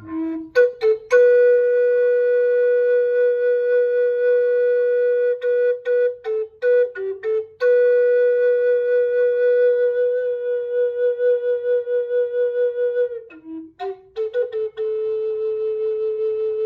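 A solo flute playing slow, long held notes, separated by quick flourishes of short ornamental notes; the long middle note wavers in loudness as it is held.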